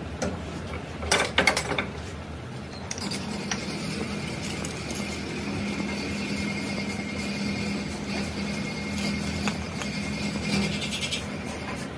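A few sharp metal clanks from a steel bench vise and its handle about a second in. From about three seconds in, an aerosol spray-paint can hisses steadily for about eight seconds as it sprays black paint onto a steering tie rod end, then stops near the end.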